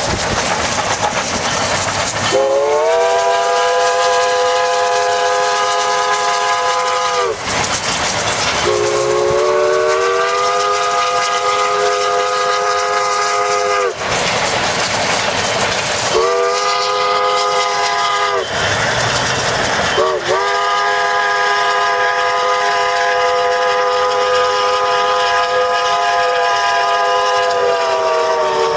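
QJ 2-10-2 steam locomotive's whistle blowing the long-long-short-long grade-crossing signal, each blast swooping up slightly as it opens, the last one held longest, over the steady rush of the running train.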